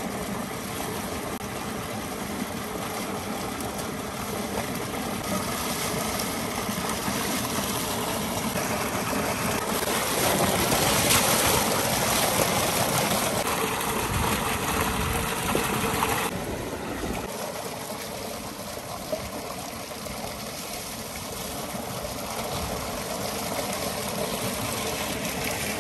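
A thick stream of water gushing steadily from an irrigation pipe outlet into a trough. From about ten to sixteen seconds in, the rush turns louder and splashier as a bowl is held into the falling water.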